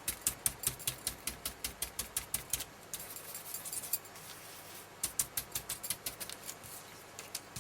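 Ink being dabbed onto card with an ink blending tool: a quick run of short soft taps, several a second, thinning out for a couple of seconds in the middle before picking up again.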